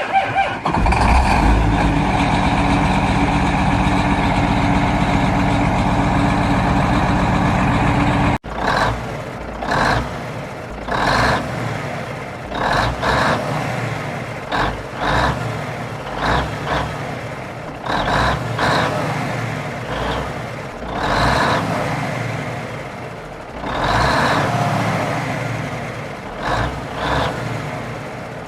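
Peterbilt 589 semi truck's diesel engine running steadily, then after a sudden cut about eight seconds in, a string of short, irregular louder surges every second or two over the running engine.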